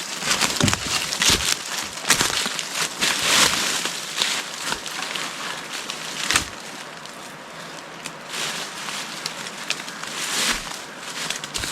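Dry leaves and undergrowth rustling and crackling as a forager works on the hillside, with irregular short knocks and snaps.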